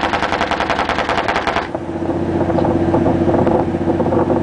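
40 mm L/70 anti-aircraft gun firing a rapid automatic burst of evenly spaced shots, which stops about a second and a half in. A steady low hum of ship machinery carries on underneath.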